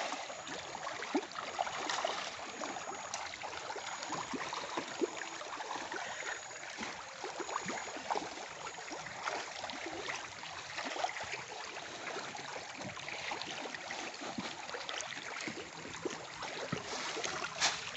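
Crowds of tilapia in a floating net cage splashing and gulping at the water's surface in a feeding frenzy: a steady wash of small splashes with scattered louder ones.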